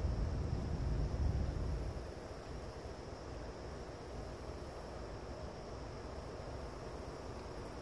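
Steady chirring of insects in the trees at the water's edge, with a low rumble of wind on the microphone during the first two seconds.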